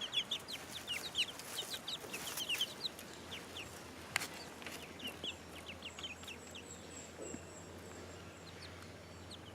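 Young chicks peeping: rapid short high chirps, each sliding down in pitch, busiest in the first three seconds and thinning out after. A single sharp click about four seconds in.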